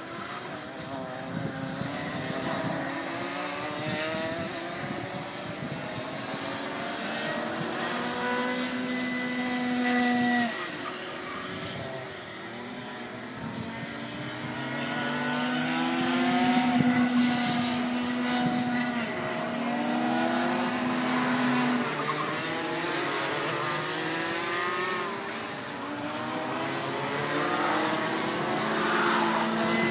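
Several Rotax Max 125 cc two-stroke kart engines racing, their pitch climbing and dropping through the corners and holding high on the straights, with several karts overlapping as they pass.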